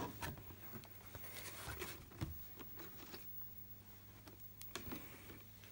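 Faint clicks and light rustles of a clear plastic protector case being opened and lifted off a carded action figure, then set down. A low steady hum runs underneath.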